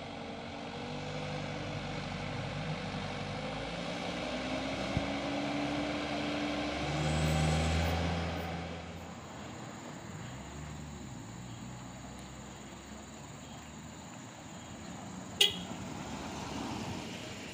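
Loaded light diesel truck climbing a steep grade, its engine note rising as it comes closer. It is loudest about seven to eight seconds in, as it passes, then fades away. A single sharp click comes near the end.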